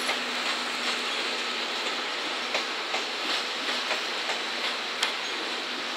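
Wheels of 14 series passenger coaches rolling slowly over station trackwork, clicking irregularly over rail joints and points as the train departs.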